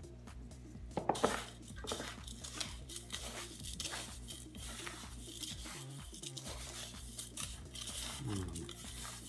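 Hand mixing coarse salt, sugar and thyme in a stainless steel bowl: gritty scraping and rustling of salt crystals against the metal, with a few sharper scrapes about one and two seconds in.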